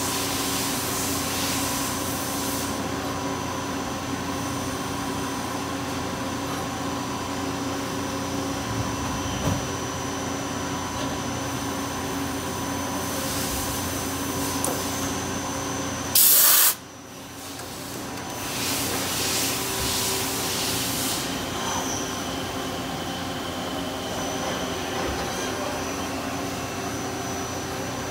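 1995 Miyano BNC-34A CNC turning center running a turning cycle: a steady machine hum with several steady whining tones. Spells of hissing come and go, with one brief, very loud burst of hiss about 16 seconds in.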